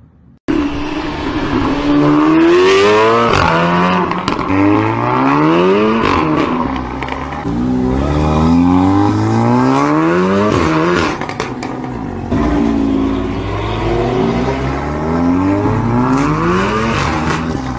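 Volkswagen Golf R (Mk7) 2.0-litre turbo four-cylinder accelerating hard through the gears. The exhaust note climbs in pitch, drops at each upshift and climbs again, several times over. Sharp exhaust pops and crackles are scattered through it.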